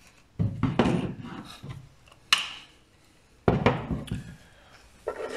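Handling noises from tools and parts being picked up and moved: rubbing and scraping in three stretches, with a sharp knock a little over two seconds in.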